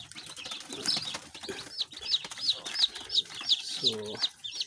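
Newly hatched chicks peeping: a run of short, high, falling peeps at about three a second, with one brief lower call near the end.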